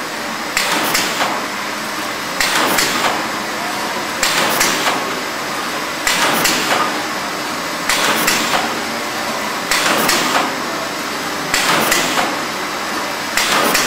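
Contech abrasive pad sheeter running in automatic mode, over a steady machine hum. About every two seconds a cluster of two or three sharp mechanical clacks marks each cycle of the cutter, eight cycles in all.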